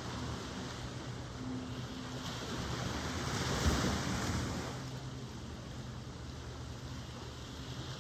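Ocean surf: a wave breaks and washes in, swelling to its loudest about halfway through and then fading, over a steady low rumble.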